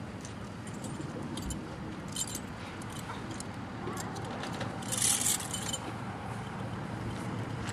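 Metal tack hardware on a western saddle's cinch and straps jingling and clinking as it is handled. Scattered light clinks come first, then a louder jingle lasting under a second, about five seconds in.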